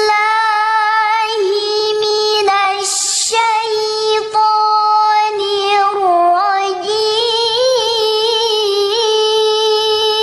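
A young girl chanting Qur'anic recitation into a microphone, in long held notes with wavering ornaments. She takes a quick breath about three seconds in.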